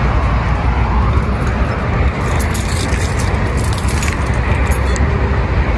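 Steady outdoor rumble of car traffic and wind buffeting the microphone, strongest in the deep low end. A few light clicks come about two to four seconds in.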